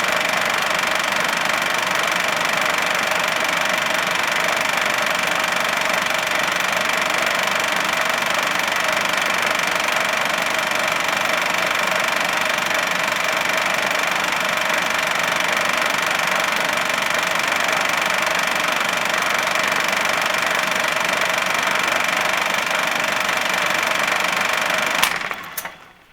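Film projector running steadily, its mechanism giving an even, fast rattle with a steady whine. About a second before the end it winds down quickly and stops.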